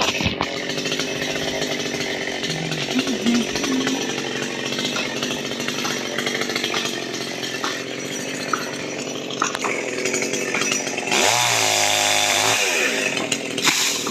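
Chainsaw running steadily while cutting a tree. About eleven seconds in it gets louder and its pitch sags under load, then climbs back up after a second or so.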